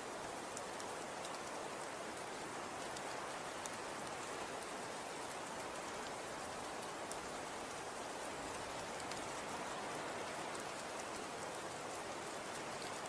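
Snow falling and landing: an even, steady hiss with many faint, fine ticks scattered through it.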